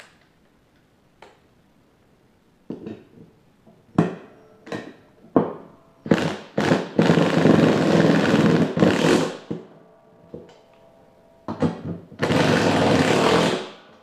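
Cordless impact driver fastening the nuts of a new mower-deck spindle onto the deck. It runs in several short bursts, then in two longer runs of about two seconds each, one midway and one near the end, with a couple of light clicks before it starts.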